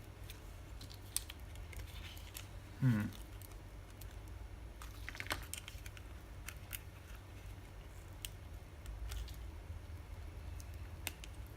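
Small scattered clicks and taps of plastic parts being handled and worked apart during the teardown of a crushed Uniden RM500 remote microphone, with one short squeak about three seconds in and a steady low hum underneath.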